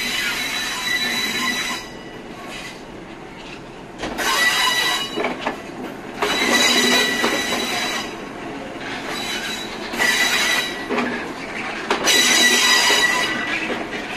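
Passenger train's steel wheels squealing as its carriages roll slowly past close by. The squeal comes in about five shrill bursts, each a second or two long, over the rumble and clatter of the wheels.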